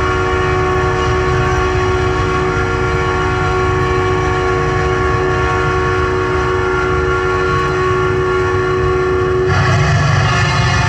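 Several truck air horns sounding together in a steady chord of many held tones over a low rumble. About nine and a half seconds in, one tone cuts off and the mix changes.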